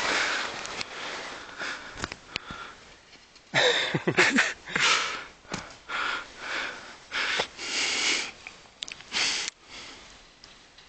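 A run of short sniffs and nasal breaths close to the microphone, one every second or so, with a brief vocal sound about four seconds in.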